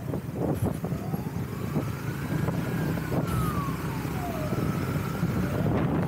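A siren wailing faintly, its pitch rising slowly and falling back once, then starting to rise again near the end, over a steady low rumble and wind noise on the microphone.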